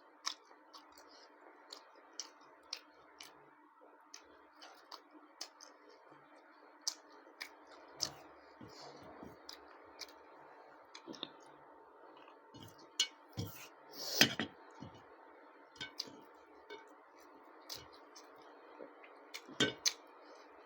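Close-up eating sounds: irregular wet mouth clicks and smacks from someone chewing food, with a louder cluster of smacks about two-thirds of the way through, over a faint steady hiss.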